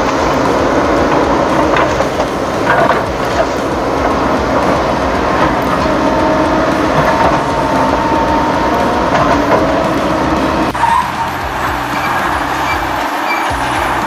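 Steady, loud engine-like machine noise, as of a heavy vehicle working, with a few faint wavering tones; its sound changes about eleven seconds in.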